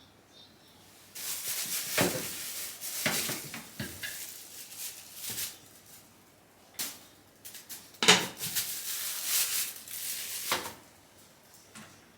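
Laundry being handled: two spells of rustling and swishing, each broken by a few sharp clicks and clinks.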